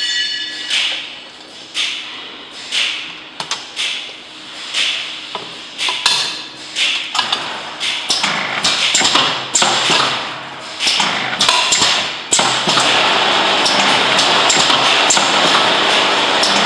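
Glass jars knocking and clinking as they are handled and set into the holders of a semi-automatic vacuum capping machine. About twelve seconds in, the machine starts running with a steady hiss and low hum, its vacuum pump and capping head working, while a few knocks go on over it.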